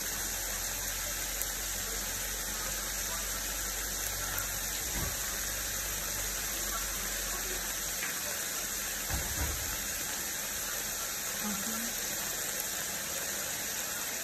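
Pork pieces frying in hot oil in a steel wok, a steady sizzle.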